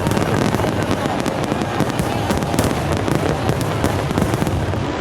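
Fireworks going off in quick succession: a dense run of sharp bangs and crackles, many a second, without a break.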